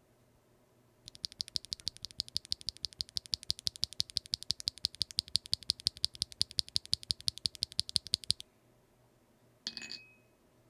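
Typing test on a custom mechanical keyboard fitted with factory-lubed WingTree Yunie linear switches, aluminum plate and no foam. A fast, even run of sharp keystroke clacks, about seven or eight a second, starts about a second in and lasts about seven seconds. One more short clack with a brief ping comes near the end.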